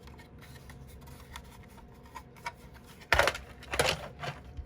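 Packaging being handled: light clicks and small rustles, then a few short, louder crinkling rustles about three seconds in as the next alarm is taken out of its wrapping.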